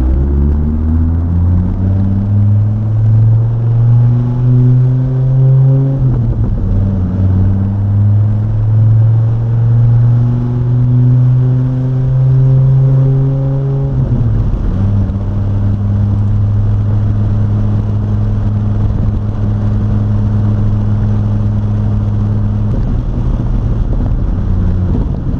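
2006 Dodge Viper SRT-10's 8.3-litre V10 accelerating up through the gears. The engine pitch rises for about six seconds, drops at an upshift, climbs again, and drops at a second upshift about fourteen seconds in. It then holds steady as the car cruises.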